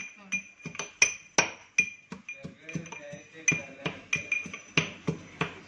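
Ginger being pounded in a small stainless-steel cup with a pestle: quick repeated knocks, about three to four a second, each one leaving the steel ringing.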